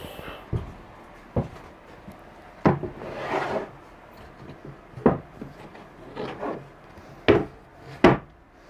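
Wooden boards being handled and set down on a workbench: about six separate hollow wooden clunks, with short sliding scrapes between some of them.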